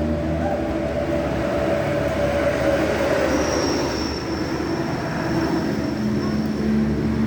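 A vehicle running steadily, with a thin high whine joining about halfway through.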